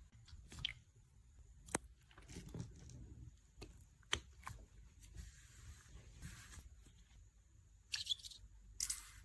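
Close-up handling of a squishy stress-relief toy: scattered sharp clicks and snaps, a soft crinkly rustle, and two short tearing crackles near the end.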